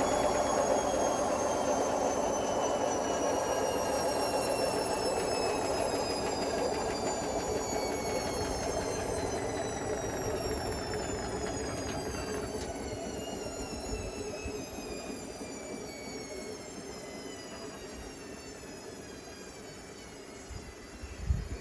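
Hotpoint Smart Tech WMFUG742 washing machine, loaded with bricks, slowing down at the end of its final spin: the motor whine falls steadily in pitch as the drum rumble fades. A single knock sounds near the end.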